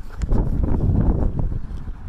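Wind buffeting a phone's microphone while the phone is swung round, a low, choppy rumble that swells for about a second and a half.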